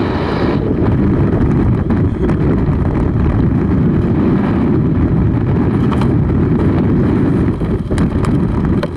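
Airflow buffeting the camera's microphone during a descent under an open parachute canopy: a steady low rush of wind, with a couple of light clicks near the end.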